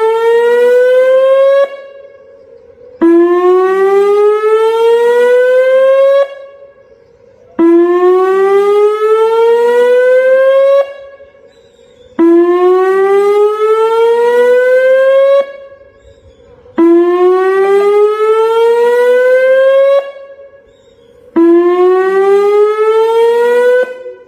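Tsunami warning siren sounding a test signal: a loud, repeated whoop that climbs in pitch for about three seconds, then cuts off abruptly. It comes about every four and a half seconds, six times, the first already under way.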